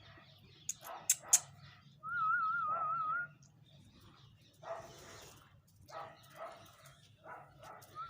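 A dog barking and yelping several times in short calls. Two sharp clicks come about a second in, and a warbling whistle sounds for about a second just after two seconds.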